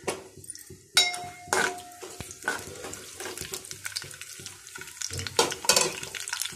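Metal spoon stirring a tempering of lentils and cumin seeds frying in oil in an aluminium kadai: clinks and scrapes against the pan over a light sizzle. A sharp ringing clink comes about a second in.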